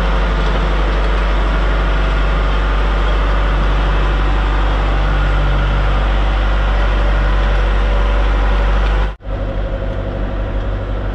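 Excavator's diesel engine running steadily. It breaks off abruptly about nine seconds in, then carries on a little quieter.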